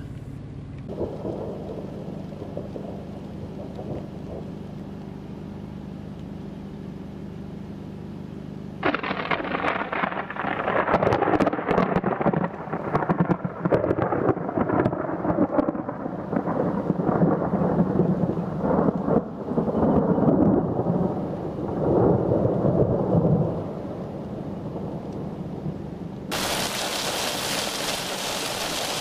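Thunderstorm: a low steady background, then a loud, crackling rumble of thunder breaks in suddenly about a third of the way through and goes on for some fifteen seconds before dying down. Near the end, steady rain hiss.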